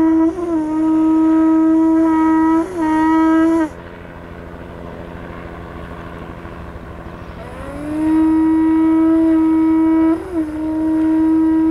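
A horn blown in long, steady notes, each broken by small upward flips in pitch. The first note stops a little under four seconds in; after about four seconds of quieter rushing noise, a second note swells up and holds.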